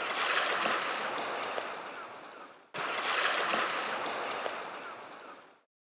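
Ocean surf washing onto a beach: two waves, each coming in suddenly and fading away over about two and a half seconds.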